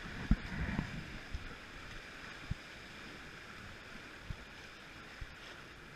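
Whitewater rapids rushing steadily beside a raft, with a few scattered knocks, the loudest within the first second.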